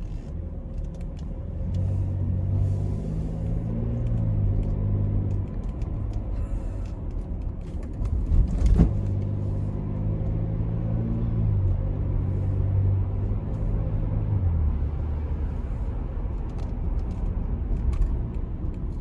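Inside the cabin of a 2020 Chevy Traverse while it is driven: steady road rumble with the engine hum rising and falling in pitch as the car speeds up and slows. There is a brief louder knock about nine seconds in.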